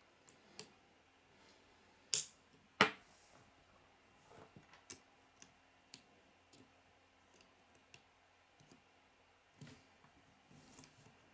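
K'nex plastic pieces being handled and snapped together: two loud sharp snaps a little over half a second apart about two seconds in, then scattered light clicks and taps.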